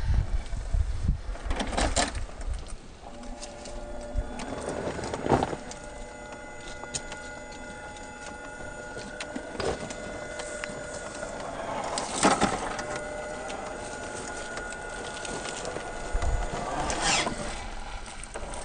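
Electric motor and geared drivetrain of a Vanquish VS4-10 scale RC rock crawler whining steadily as the truck crawls slowly over rock, starting a few seconds in. Scattered clicks and knocks of tyres and chassis on stone, a few of them sharper.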